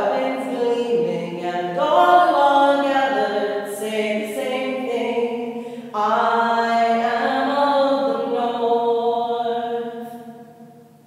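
A woman singing a cappella in long held notes, drawing the words out; the voice fades away near the end.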